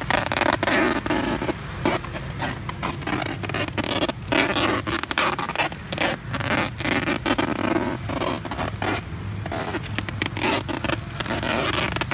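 Packing tape pulled off its roll in repeated rasping strips, with plastic snack bags crinkling as the tape is wrapped around them.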